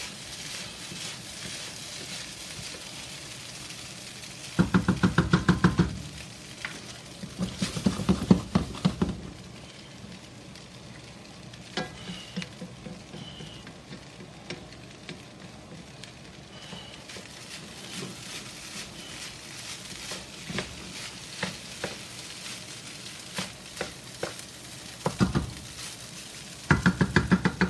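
Rice sizzling in a hot wok, with loud bursts of rapid spatula scraping and knocking against the wok as it is stirred with a scooping motion, several times.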